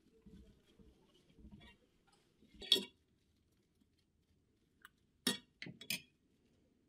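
Light clinks of small objects being handled and set down on a bedside table: one about three seconds in, then a quick run of three near the end, with faint rustling before them.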